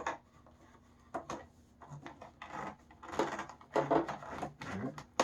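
Plastic vacuum hose being pushed and worked into the body of a Dirt Devil upright vacuum cleaner. A few sharp clicks about a second in, then a busier run of irregular knocks and rubbing.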